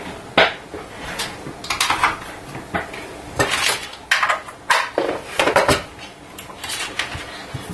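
Cables being handled and their plugs connected to the back of an aluminium hard drive docking station: a sharp click about half a second in, then a run of irregular clatters, knocks and scrapes.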